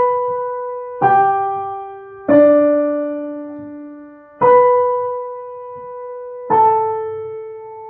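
Piano played in right-hand octaves: five slow notes, B, G, D, B and A, each struck and left to fade. The first two are shorter; the last three, whole notes, are held about twice as long.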